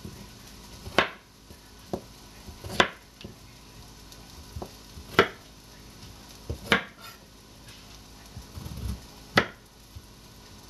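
A chef's knife chopping a peeled potato on a plastic cutting mat: sharp knocks of the blade striking the board every second or two, about five loud ones with a few lighter taps between.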